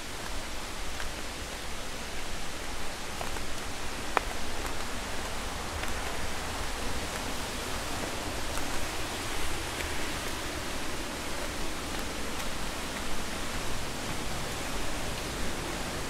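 Steady rushing hiss of flowing water from a stream or waterfall, with a few faint footsteps on the path.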